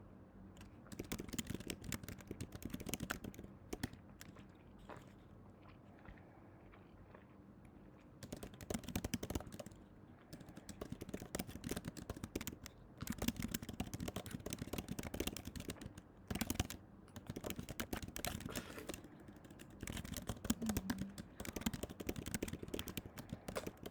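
Quick light clicks in dense runs of a few seconds each, with short pauses between, like typing.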